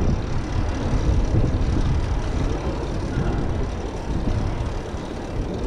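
Rumbling road and wind noise from riding a fixed-gear bicycle over brick paving, a steady low, irregular rush with no distinct events.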